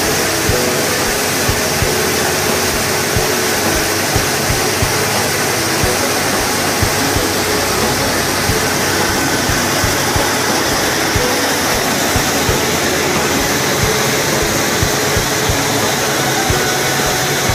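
Small rice mill plant running: a loud, steady machinery noise of electric motors and milling and separating machines, with irregular low knocks.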